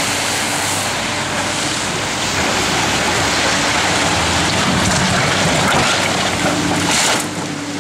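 A building's shingled roof being pulled down by an excavator: a long, loud stretch of crashing and crumbling debris that drops off about seven seconds in, with the excavator running underneath.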